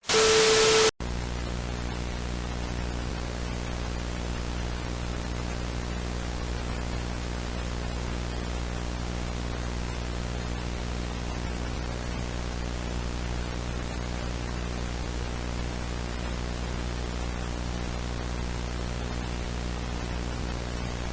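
A loud burst of static with a steady tone in it lasts about a second and cuts off sharply. It is followed by a steady bed of hissing broadcast static over a low buzzing electrical hum, the dead-air signal of an analog broadcast.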